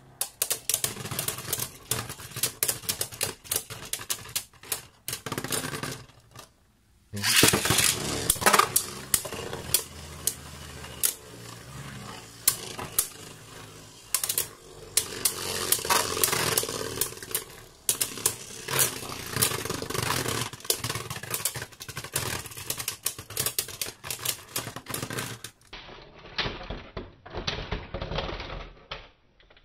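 Beyblade Burst spinning tops battling in a plastic stadium: rapid, irregular clicks and knocks of the tops colliding over a steady spinning whir, with a short break about six seconds in.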